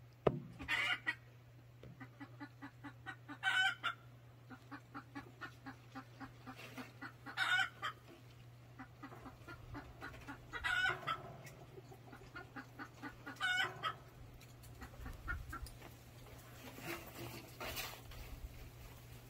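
Chickens clucking: a steady run of short clucks, broken every three to four seconds by a louder, drawn-out squawk.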